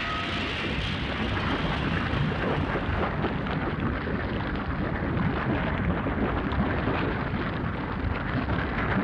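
Film sound effect: a continuous low rumbling, crackling noise, with the hiss in the highest range fading out about three seconds in.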